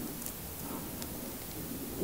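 Honeycomb squeezed between fingertips: the beeswax comb crackles in small ticks and the honey squelches as it is pressed out.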